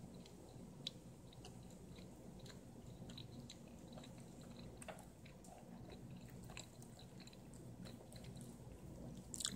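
A domestic cat faintly chewing scraps of turkey meat, with small irregular mouth clicks and smacks, as she has trouble getting the pieces into her mouth.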